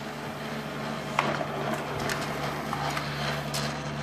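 HP LaserJet P3005 laser printer running with a steady hum and irregular clicking and rattling: the noise problem that is fixed by replacing its fuser gear set.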